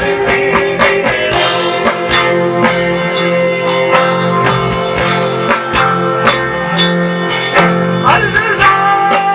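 A live band playing an instrumental passage: guitar over drums and bass, with the drum hits coming at a steady beat.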